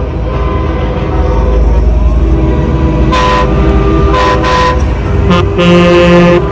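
Semi-truck air horns sounding in several blasts over the low rumble of the passing trucks' diesel engines. The blasts start about halfway through, and the longest comes near the end.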